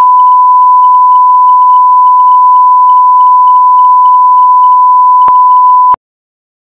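Steady, single-pitch line-up test tone played over colour bars at the head of a broadcast tape, with a brief click about five seconds in. The tone cuts off suddenly about six seconds in.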